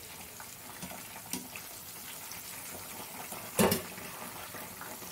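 Battered mushroom pieces deep-frying in hot oil, a steady sizzle with small pops, while the first-turned side crisps and the second side fries. One short, louder clatter about three and a half seconds in.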